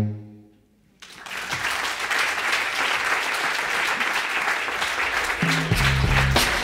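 The song's last low note dies away, and after a moment of silence an audience starts applauding. Near the end a low, rhythmic bass line of music comes in under the clapping.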